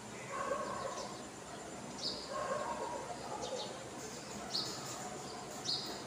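House sparrows giving short, high chirps three times, about two seconds in, then twice near the end. Two spells of lower-pitched calling, each about a second long, fall in the first half.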